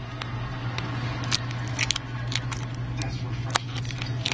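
Clear plastic film crackling in scattered, irregular clicks as fingers press and handle the screen wrapped in it, with a steady low hum underneath.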